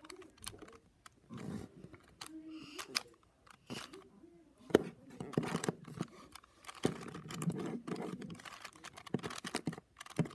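Plastic clicks and clacks of a stickerless 4x4 puzzle cube's layers being turned by hand in an irregular run of turns, with one sharper snap about five seconds in.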